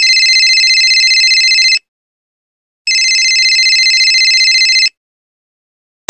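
Telephone ringing: two trilling rings, each about two seconds long, about a second apart.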